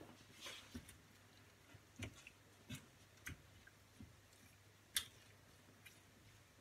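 Faint, scattered knocks and scrapes of a wooden spatula against a frying pan as spare ribs in tomato sauce are stirred, the loudest about five seconds in.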